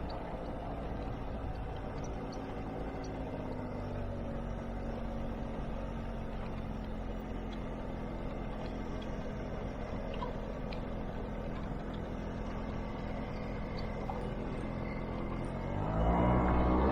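Motor scooter's small engine running steadily while riding, then revving up and getting louder near the end as the throttle opens.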